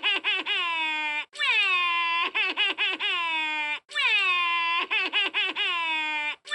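Daisy Duck's cartoon voice crying: a long, falling wail followed by a run of quick, choppy sobs, repeated about every two and a half seconds as a loop.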